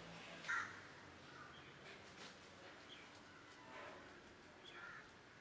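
Short harsh animal calls: one louder call about half a second in, then a few fainter ones near the end.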